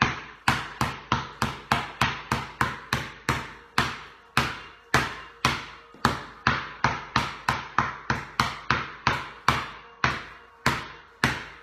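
Basketball dribbled hard on a concrete garage floor: a steady run of sharp bounces, about three a second, each with a short echo off the garage walls.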